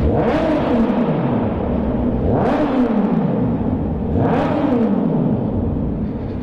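Kawasaki Z800's inline-four engine revving hard three times inside a road tunnel. Each time the revs climb quickly, then fall away over about a second and a half as the throttle is rolled off.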